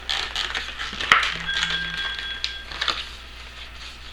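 Small clicks and taps of tools and phone parts being handled during an iPhone 7 screen repair, with a short two-pulse buzz and a thin steady electronic tone about a second and a half in.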